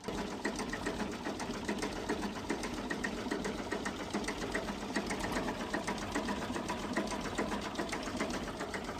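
A small machine running steadily with a fast, even clicking rhythm.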